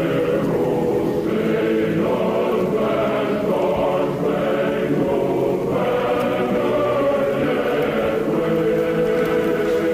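Choral music: sustained chant-like voices holding chords that shift every second or two, at a steady level.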